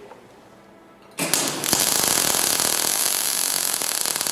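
A transformer MIG welder's arc strikes about a second in and then runs with a steady, dense crackle. This is the short-circuit arc of 1 mm wire being welded, with the wire feed just turned up.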